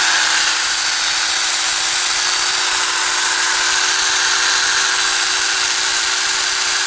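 Saker cordless mini chainsaw running at a steady speed with its chain spinning free, not cutting anything. Its electric motor gives an even whir with a steady hum under it.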